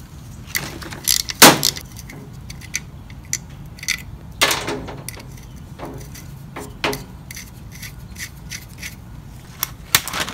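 Clinks and knocks of a metal alternator being handled and set down on a metal mesh table, with the loudest knock about a second and a half in. A few quick clicks near the end as scissors cut a zip tie.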